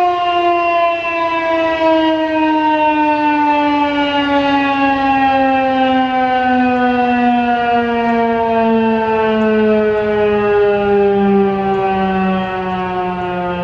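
Federal Signal 2001-130 rotating electromechanical warning siren winding down at the end of its alert signal, its single loud tone sliding steadily lower in pitch.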